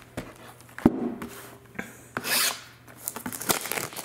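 A shrink-wrapped cardboard trading-card box being handled on a tabletop, with rubbing and scraping, a sharp knock about a second in, and a longer rasp around two seconds in.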